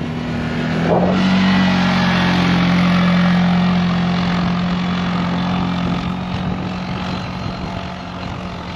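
ATV engine running under throttle on a snow trail. It picks up revs about a second in, then holds a steady drone that eases off slightly near the end, over a steady rushing hiss.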